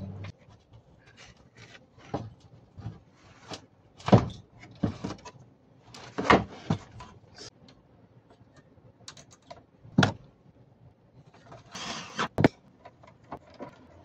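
Handling and assembly noises from a split air conditioner's plastic indoor unit: irregular clicks, clacks and knocks, a few of them sharp and loud, and a short scraping rustle near the end.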